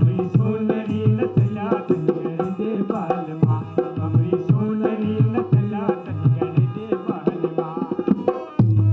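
Live folk music: a two-headed hand drum plays a steady driving rhythm under a melody that bends in pitch.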